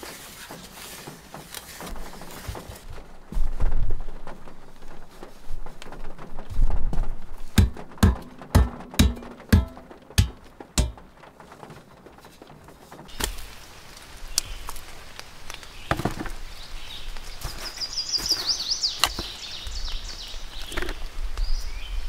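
Wooden knocks and thumps as logs are worked into place on a dugout's earth and plank floor, with a run of about eight heavy thumps in quick succession midway. After that the sound changes to open-air ambience with a bird chirping briefly.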